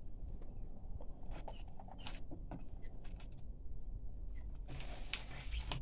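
Small clicks and scrapes of pliers and hands working the spiny skin of a hedgehog fish (porcupinefish) held in a cloth, with a longer rustling scrape about five seconds in.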